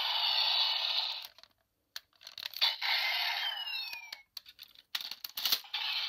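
Tinny electronic sound effects from a Sentai toy blaster's small speaker, breaking off about a second and a half in, then resuming with a few short pitch sweeps; near the end, hard plastic parts click and snap as the toy is handled.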